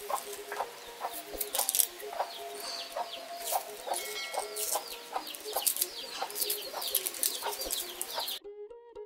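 Chickens clucking with many short, repeated calls. Background music cuts in suddenly near the end.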